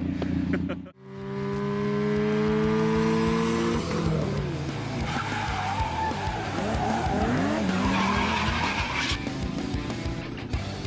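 A car engine held at steady high revs, then tires squealing and skidding over engine noise for several seconds.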